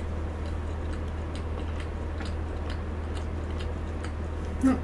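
Soft, wet mouth clicks of someone chewing a mouthful of chocolate cake with her mouth closed, about two small clicks a second. A brief hum of voice comes near the end.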